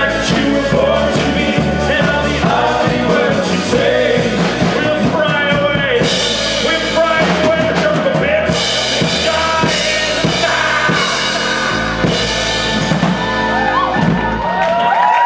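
A rock band playing live, with drum kit, bass and some singing. The band stops just before the end.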